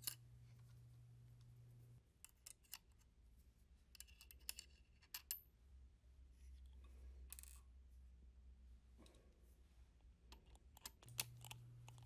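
Near silence with faint, scattered small metallic clicks and scrapes: a screwdriver loosening the small screws of a spacer plate on a sewing-machine attachment.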